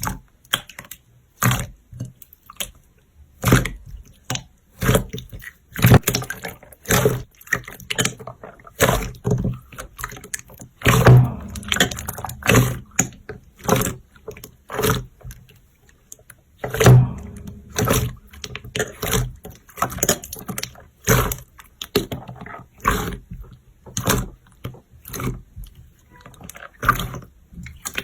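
Slime being squeezed and poked by hand, giving short wet clicks and pops at an irregular pace of about one or two a second.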